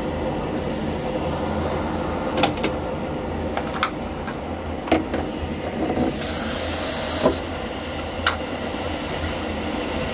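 Pieces of apple and pear put into a cooking pot: a handful of separate knocks and clicks over a steady low rumble, with a burst of hissing for about a second and a half a little past halfway.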